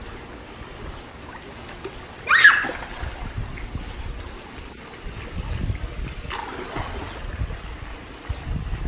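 Swimming-pool water splashing as a child goes off an inflatable float into the water, with one loud splash about two seconds in, then lighter splashing as she swims.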